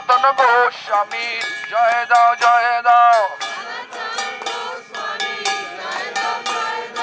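Kirtan: a man's voice singing a devotional chant through a handheld microphone and a megaphone horn loudspeaker, in long wavering held notes. Small hand cymbals ring out a steady beat beneath it.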